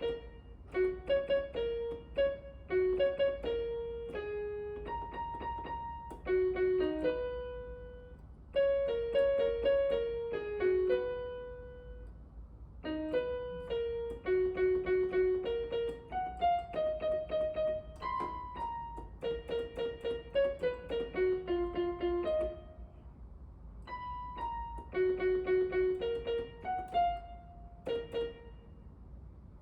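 Background piano music: a simple melody of single struck notes played in short phrases with brief pauses between them.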